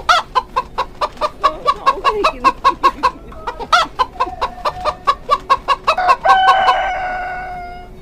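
Chicken clucking in a rapid run of short clucks that speeds up, ending a little after six seconds in with one long drawn-out squawk that fades away. It is a comic sound effect.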